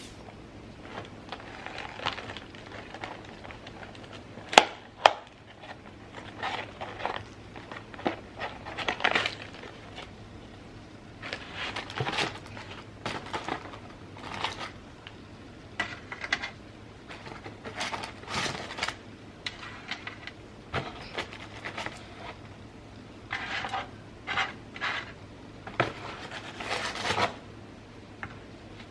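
Close-miked eating sounds of fried chicken tenders and fries: crunchy bites and wet chewing in irregular bursts, with two sharp clicks a little before five seconds in. A faint steady hum lies underneath.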